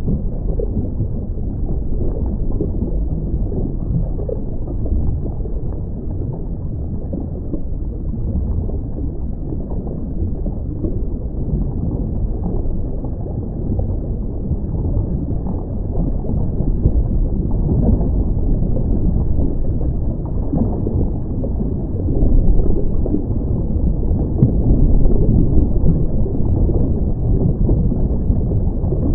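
Dull, muffled underwater rushing and gurgling, recorded through a camera's waterproof housing on a scuba dive, growing a little louder about two-thirds of the way through.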